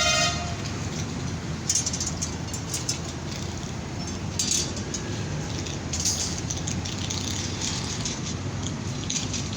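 Steady rumble of traffic and heavy engines. A vehicle horn sounds briefly at the very start, and several short hisses come through.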